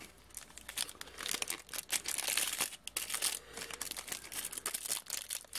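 Clear plastic packaging crinkling and crackling in irregular bursts as a figure and its parts are handled and pulled out of thin plastic bags.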